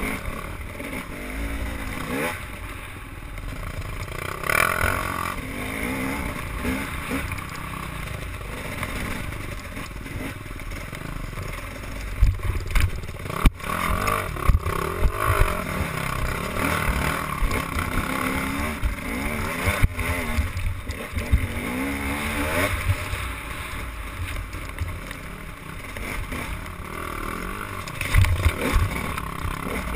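A motor running steadily, its pitch wavering, under an irregular low rumble with sharper bumps a little before the middle and near the end.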